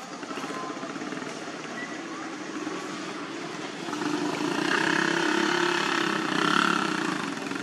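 A motor vehicle's engine going by, swelling from about four seconds in and easing off near the end over a steady outdoor background.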